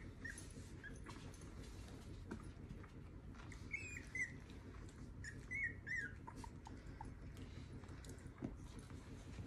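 Three-and-a-half-week-old cockapoo puppy whimpering in short high squeaks, in two brief bouts about four and six seconds in, followed by a few fainter squeaks.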